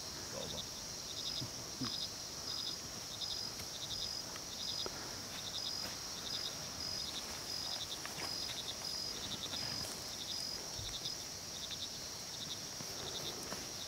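Night-time insect chorus of crickets: a steady high trill, with another insect repeating a short chirp of a few pulses about every half second.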